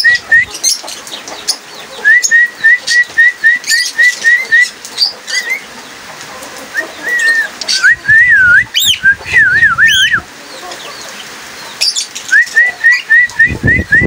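Cockatiel whistling: runs of short rising whistle notes, about four a second, and near the middle a longer warbling whistle that glides up and down. Sharp high chirps from other small cage birds are mixed in.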